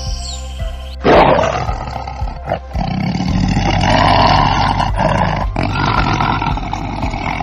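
A loud, rough animal call starting about a second in, breaking off briefly twice and running on for several seconds, over background music.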